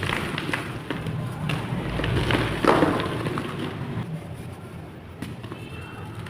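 Blocks of chalk clay being crushed and crumbling: a dense crackle of small crunches, with one louder crunch a little under three seconds in.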